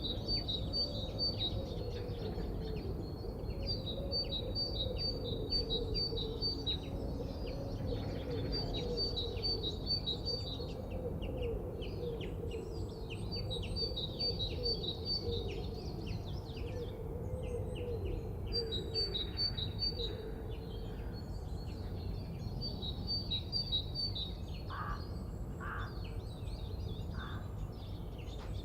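Forest birdsong: a songbird repeats a short high phrase of quick notes every four or five seconds over a steady low background rumble. Near the end come three short caws, typical of a crow.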